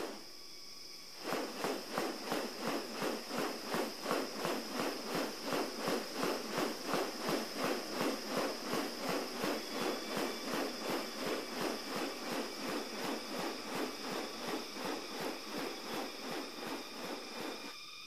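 Male riflebird in courtship display, its raised wings swishing in a steady rhythm of about three rustling strokes a second. The strokes start about a second in and stop just before the end.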